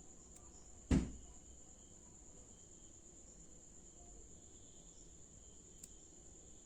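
A steady high-pitched whine runs throughout. One sharp thump about a second in, and a faint click near the end.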